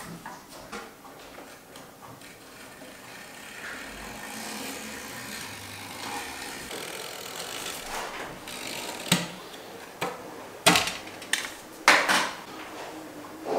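Excess insect-screen mesh being trimmed along the edge of the frame with a hand blade: a faint, steady scraping rustle. About two-thirds of the way in come several sharp clicks and knocks of tool handling.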